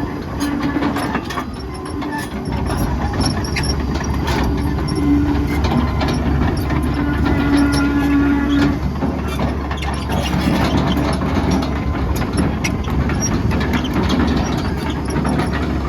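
John Deere 160D excavator working, its 4.5-litre diesel running steadily, with a tone that comes and goes, repeated metallic clanks and clicks, and high squeals.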